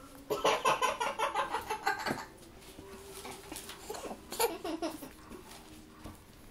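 A burst of quick, rhythmic laughter lasting about two seconds, followed by a couple of short, sharp sounds.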